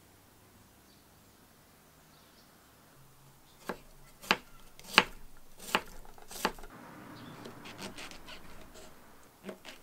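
Kitchen knife cutting on a wooden chopping board, starting about three and a half seconds in: five sharp knocks as it slices through an onion. These are followed by a quicker run of softer cuts through shimeji mushrooms.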